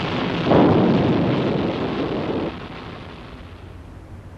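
Rocket motors of an ejection-seat test sled firing: a steady rushing blast that jumps louder about half a second in and cuts off abruptly about two and a half seconds in, leaving a fainter rumble.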